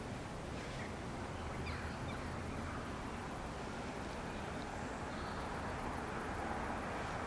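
Steady outdoor background rumble that slowly grows louder, with a few faint high chirps in the first couple of seconds.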